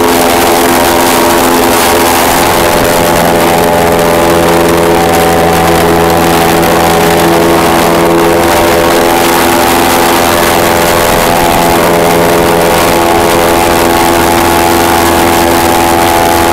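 Airboat's engine and air propeller running loud and steady with the boat under way, an even drone with a rushing hiss over it.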